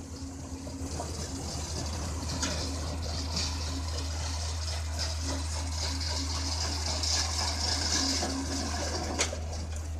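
Hydraulic excavator working a crusher bucket on demolition rubble: the engine runs steadily as a low hum under a continuous hiss and rattle of crushed concrete pouring out of the bucket. A sharp knock comes about nine seconds in.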